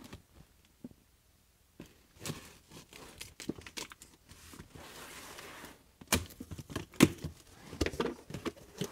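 Cardboard box being opened: packing tape slit and torn, then the flaps pulled open with rustling and several sharp knocks, loudest in the second half.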